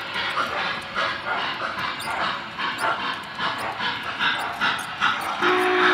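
Sound system of an MTH Big Boy O gauge model steam locomotive chuffing in short bursts, two or three a second. About half a second before the end its steam whistle starts, a steady chord of several tones.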